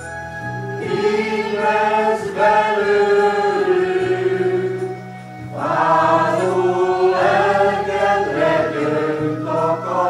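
Mixed choir of men's and women's voices singing together, holding long notes, with a short pause for breath between phrases about five seconds in.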